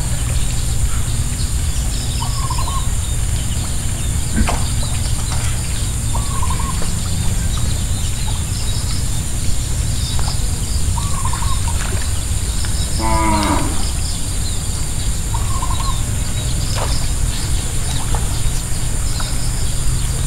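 Outdoor farm ambience: a steady low rumble and a steady high hum, with a short bird call repeated every few seconds and one brief animal call with a falling pitch about two-thirds of the way through.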